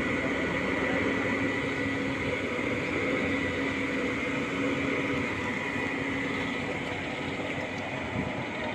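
Truck-mounted crane's diesel engine running steadily, with a steady low hum and a thin high whine.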